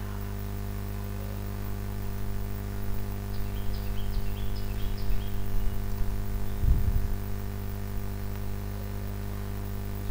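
Steady electrical mains hum. A short run of faint high ticks comes around the middle, and a soft low thump follows a little later.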